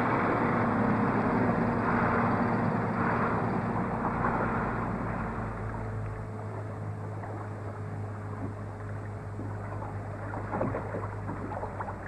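Steady engine and machinery noise, louder for the first few seconds and then easing off.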